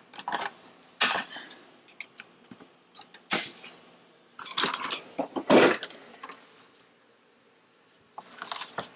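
Hand tools and hard plastic bumper parts being handled: irregular clattering knocks, clicks and rustles, with a quiet spell near the end.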